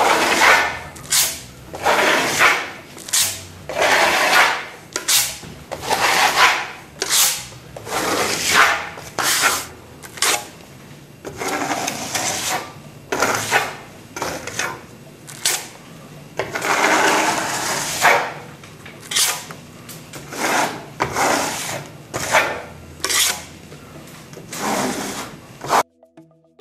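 Plaster trowel blade scraping Grosseza XT plaster over a rough, dried sandstone-textured wall in repeated top-to-bottom strokes, a rasping scrape about once or twice a second. The scraping stops abruptly about a second before the end.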